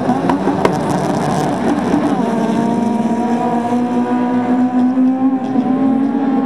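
A grid of 1600-class autocross cars revving up and down at the start line, then launching together about two seconds in, engines held at high, steady revs as the pack pulls away.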